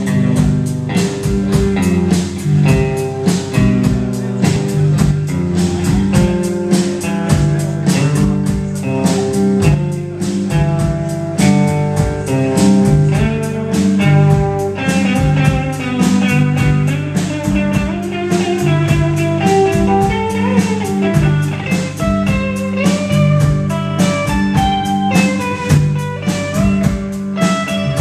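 Rock band playing live: electric guitars over electric bass and a drum kit, the drums keeping a steady beat, heard through the room.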